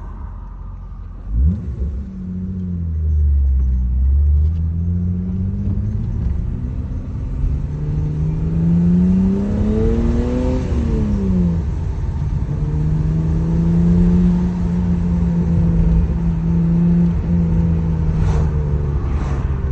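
BMW E34 525i's stock-exhausted M20B25 2.5-litre straight-six pulling under acceleration. The revs climb steadily to a peak about ten seconds in, drop with a gear change, then hold steady at a cruise.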